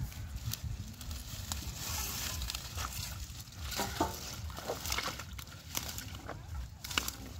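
Hands groping and squelching in wet mud among water hyacinth, with scattered crackles and rustles from the plants and small sloshes of muddy water.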